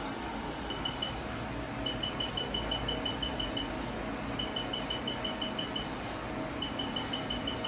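Laser hair removal machine beeping in runs of short, high beeps, about five a second, each beep marking a laser pulse as the handpiece is worked over the skin. There is a short run of three about a second in, then three longer runs with brief pauses between them, over a steady low hum.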